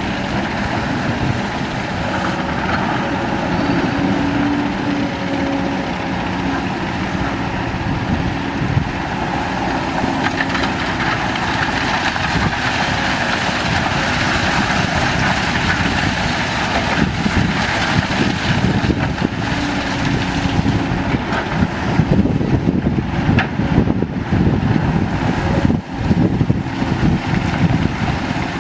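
Kobelco SK200 hydraulic excavators' diesel engines running steadily as they dig and load sand. The sound grows louder and more uneven in the second half.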